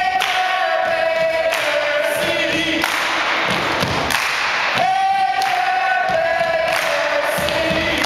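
Group of voices singing, with a long held note that slides slightly lower, sung twice about five seconds apart.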